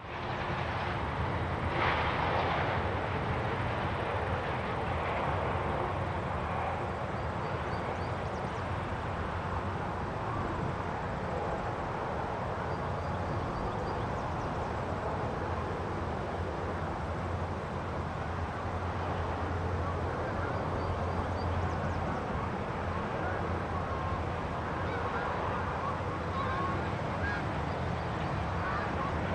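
Countryside ambience: steady wind with birds calling here and there, a louder call about two seconds in.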